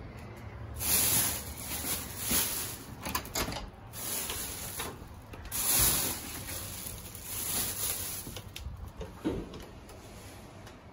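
Plastic bag full of used towels and bed linen rustling and crinkling as it is handled and set down, in several loud bursts.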